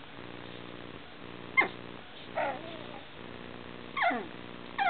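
Coton de Tulear puppy whimpering: four short, high cries about a second apart, each sliding down in pitch.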